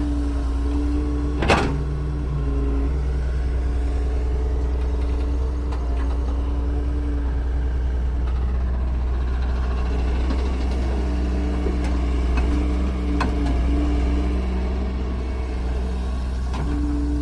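Excavator's diesel engine running steadily under a whine that comes and goes, with one sharp clank about a second and a half in.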